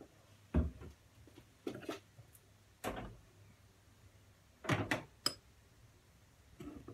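Irregular knocks and thumps of things being handled in a kitchen, about half a dozen separate ones, the loudest about half a second in and near five seconds in.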